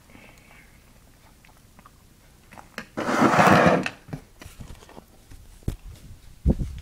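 Handling noise from the recording device as a hand grabs and covers it: a loud rubbing scrape about three seconds in lasting about a second, then a few short knocks as it is picked up and moved.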